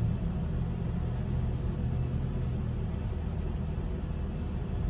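Steady low rumble of a car idling, heard from inside the cabin.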